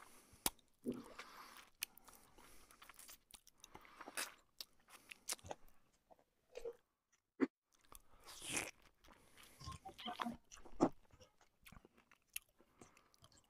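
Close-up chewing and mouth sounds of a man eating chicken curry with his fingers: faint, irregular clicks and smacks.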